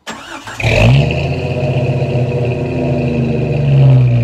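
1997 Jeep Cherokee engine started: a brief crank, then it catches under a second in with a quick rise in revs. It settles into a steady run at the tailpipe, with a slight rev near the end.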